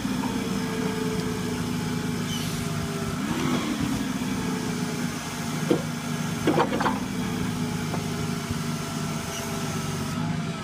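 Toyota forklift engine idling steadily while its rotating clamp attachment is turned. The engine speed rises briefly about three and a half seconds in, and a few sharp clanks come around six to seven seconds in.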